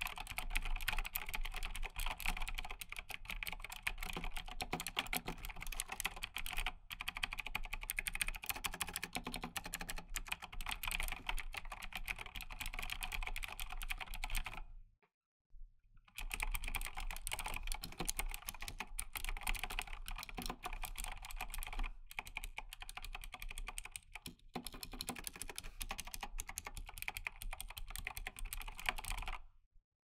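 Continuous typing on a Razer BlackWidow X mechanical keyboard with clicky Razer Green switches (like Cherry MX Blue), a dense stream of sharp key clicks. About halfway through the typing stops for a moment. It then resumes with rubber O-ring dampeners fitted under the keycaps, which make the keystrokes only a little more subtle.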